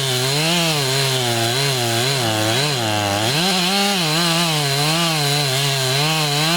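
Gas chainsaw running hard, its engine pitch dipping and rising over and over as it works.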